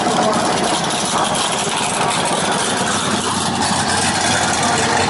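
Drag-race Mustang V8 engines idling roughly with a choppy, rattly beat as the cars roll toward the starting line.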